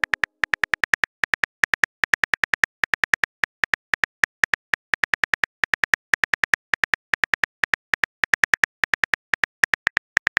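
Rapid key-tap clicks of a texting app's on-screen keyboard as a message is typed out, each a short high tick, about five a second with brief pauses.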